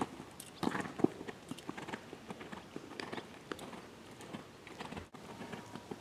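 Hoofbeats of a young Holsteiner gelding cantering on sand arena footing, with heavier thuds about a second in as it lands from a jump.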